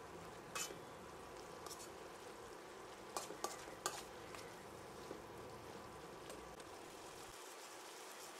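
Okra curry frying and sizzling in a metal pan, with a metal ladle stirring it and clinking sharply against the pan once early and three times in quick succession a few seconds in.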